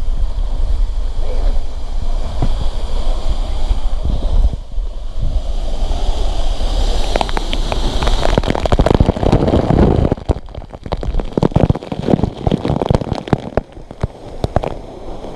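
Waterfall and stream water rushing steadily. Heavy wind rumble on the microphone for the first four or five seconds, then crackling noise through the last five seconds or so.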